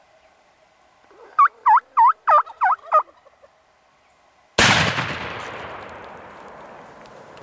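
Six short, loud turkey calls in quick succession, followed about a second and a half later by a single shotgun blast that echoes and slowly dies away as the long-bearded tom is shot.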